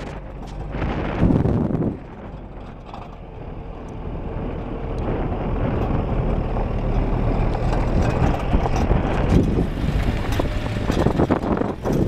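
A 4x4 jeep's engine running as it climbs a rough dirt track, with a steady low drone that grows louder from about four seconds in. Wind buffets the microphone in the first couple of seconds.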